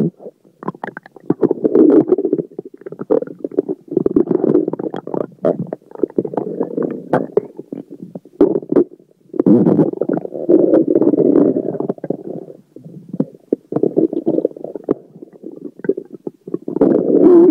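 Stomach and intestines gurgling loudly (borborygmi) as swallowed air and food move through the gut. The rumbles come in bursts of one to three seconds with brief pauses, full of small crackling pops.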